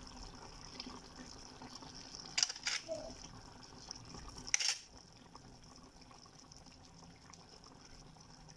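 Pan of chicken stew simmering quietly, with a faint steady liquid sound. Short sharp clicks stand out twice, about two and a half seconds in and again about four and a half seconds in.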